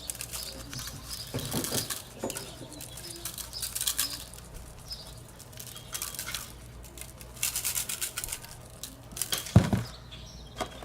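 Dry rub being shaken out of a spice shaker onto a rack of baby back ribs: short rattling, pattering shakes in bursts, with a single knock near the end.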